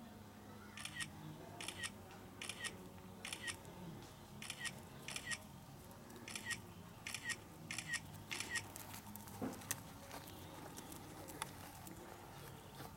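Cheetah chirping: a run of about ten short, high, bird-like chirps, about three every two seconds, that stops about two thirds of the way through.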